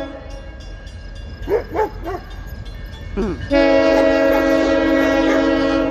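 Diesel locomotive air horn on a New England Central engine: one long blast of several notes sounding together, starting about three and a half seconds in, sounded as the engineer's salute. A few short barks come before it.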